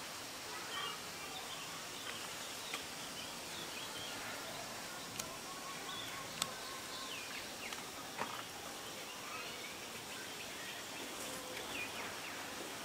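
Outdoor ambience: a steady hiss of background noise with many short bird chirps scattered through it, and a couple of sharp clicks in the middle.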